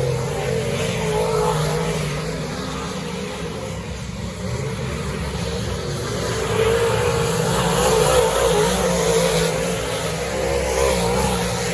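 Dirt-track modified race car engine running hard, its pitch wavering up and down as the driver lifts and gets back on the throttle, louder in the second half.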